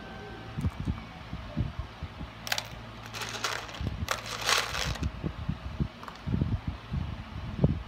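Handling craft beads: small beads rattling and rustling in a few short bursts as fingers dig into the bag of beads, between soft knocks of beads being pressed onto the glued paper.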